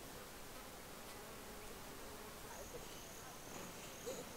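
Faint outdoor ambience of insects buzzing, with a thin, steady, high insect trill starting about halfway through.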